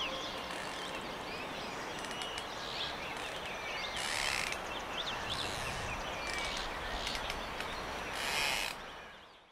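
Outdoor woodland ambience: small birds chirping over a steady background rush, with two louder rasping sounds about four seconds apart, the whole fading out near the end.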